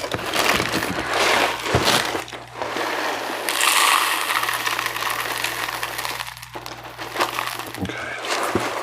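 Cereal and milk being poured into a bowl: a rattling pour of many small pieces, then a smoother, splashing liquid pour.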